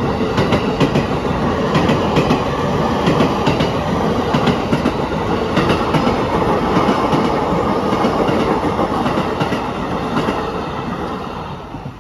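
Train passing close by, its wheels clacking over rail joints above a steady rumble. The sound fades away near the end.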